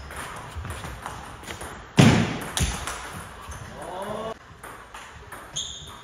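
Table tennis rally: the ball knocking off bats and table, with a loud sharp knock about two seconds in that rings through the hall, then a few lighter ones.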